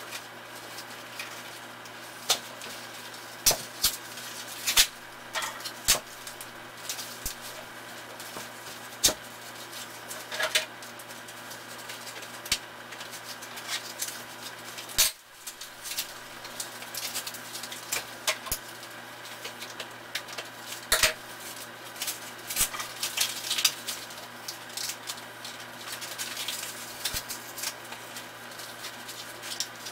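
Handling noise from unboxing: a cardboard mailing box being opened and a stack of thin wood veneer sheets rustling and clattering against a wooden table. It comes as scattered sharp clicks and taps with short rustles, over a low steady hum.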